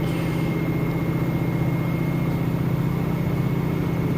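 Washing machine in its spin cycle, the drum spinning fast with a steady low hum and a thin high whine above it.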